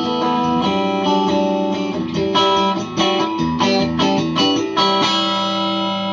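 Electric guitar, a three-pickup Les Paul Custom with all three pickups switched on together in parallel, played through an amplifier: a phrase of ringing chords and notes that changes several times.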